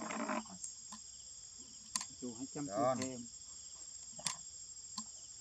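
Steady high-pitched chorus of insects singing, with a few sharp clicks.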